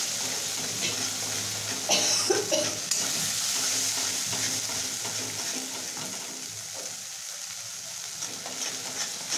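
Cashew, almond, poppy-seed, ginger and green-chilli masala paste sizzling in oil in a kadai while a steel spatula stirs and scrapes it around the pan, with a few louder scrapes about two seconds in. The masala is being sautéed (kosha) with salt, turmeric and cumin powder; the scraping eases off toward the end while the sizzle goes on.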